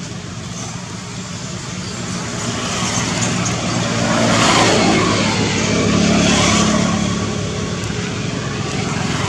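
A motor vehicle passing by, its engine hum and road noise swelling to a peak around the middle and easing off again.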